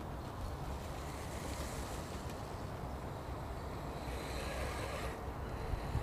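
Wind buffeting the microphone as a steady low rumble, with the faint whir of a 1:10 scale motor-on-axle rock crawler's electric motors as it drives over dirt. A brief rise of hiss and whine about four seconds in.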